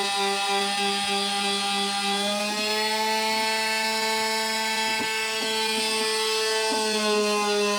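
Electric power sander running steadily against painted wood, stripping the old paint. Its motor hum dips slightly in pitch about two and a half seconds in and comes back up near the end, with a few light knocks.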